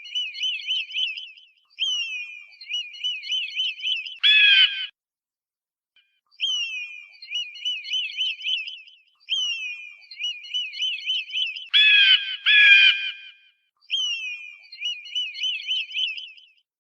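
Hawk and eagle calls: repeated bursts of rapid, high chattering notes, each burst opening with a falling note. Three louder, harsh screams break in, one about four seconds in and two close together around twelve seconds.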